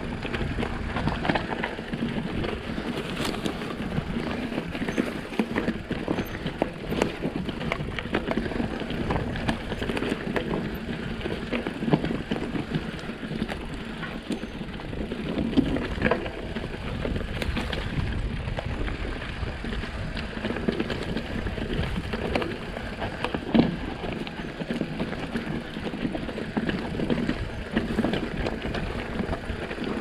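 E-mountain bike rolling down a dry trail of volcanic rock and pine needles: steady tyre noise on the loose ground with constant rattles and clicks from the bike over bumps. Now and then a sharper knock, the loudest about two-thirds of the way through.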